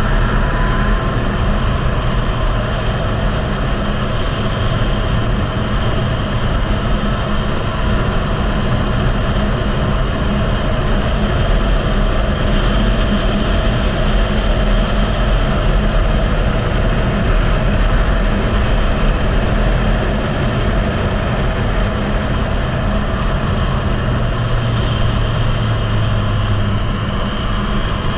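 Yamaha MT-09's three-cylinder engine running hard at speed, heard under heavy wind noise on the bike-mounted camera's microphone. The engine pitch rises near the end as the bike accelerates.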